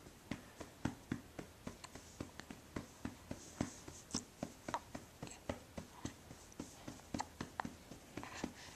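Light tapping on a baby: a quick, irregular run of soft taps, about three or four a second.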